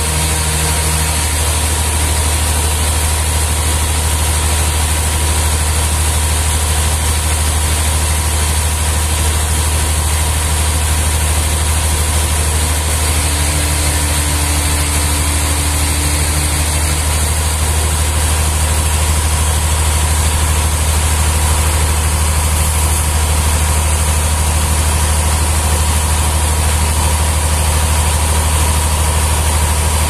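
Sawmill engine idling with a steady, deep, even drone, no cut under way.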